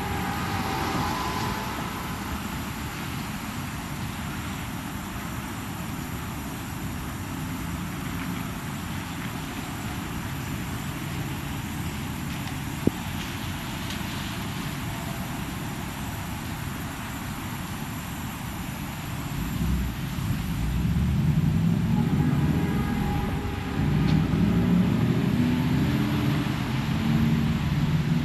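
Semi-truck's diesel engine running with a steady drone. About twenty seconds in it grows louder and its pitch rises and falls, as under throttle. A single sharp click is heard near the middle.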